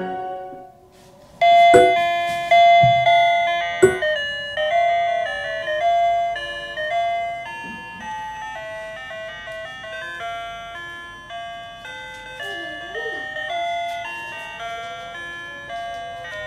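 A simple tune of bell-like electronic notes. It starts about a second and a half in, after a brief pause, and runs on softly.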